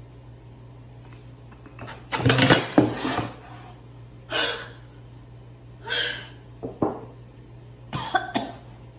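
A woman coughing in a series of short, harsh coughs. The loudest come about two seconds in, then more every second or two. She has just got a face full of flour.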